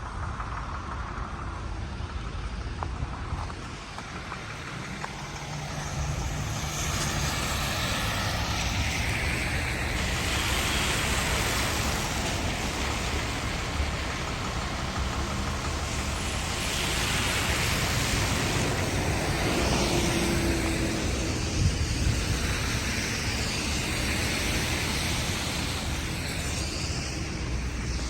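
City street traffic noise: a steady rushing wash of passing vehicles that grows louder about six seconds in.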